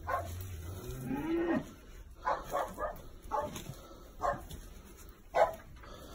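Dogs barking in a barn in short separate barks, with a quick run of three a little after two seconds in, and one low drawn-out call about a second in.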